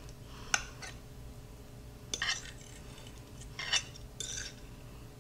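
Metal fork clinking and scraping against a plate while cutting through enchiladas: a sharp clink about half a second in, then three short scrapes later on.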